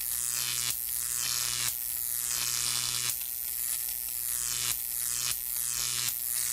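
Steady electrical hum and buzz with loud hissing static, in stretches that break and restart every second or so.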